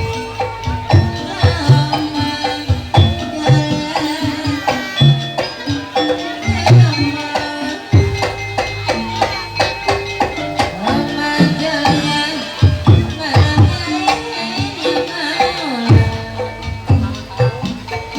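Kuda lumping ensemble music: hand drums played in a busy rhythm under ringing pitched percussion, gongs and metallophones, that holds its notes.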